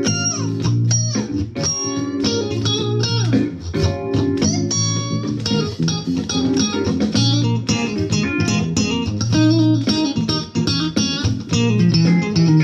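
Stratocaster-style electric guitar picked in quick single-note funk lines and short chords, with sustained low notes underneath.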